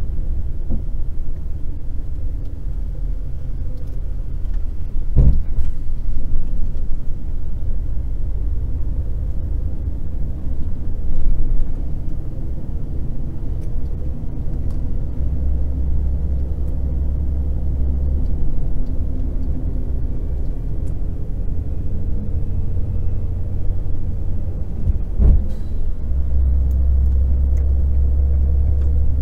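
A car being driven, heard from inside: a steady low rumble of engine and tyres on the road, with two sharp thumps, about five seconds in and again near the end, like the wheels hitting bumps. The low rumble grows louder around the middle and again near the end.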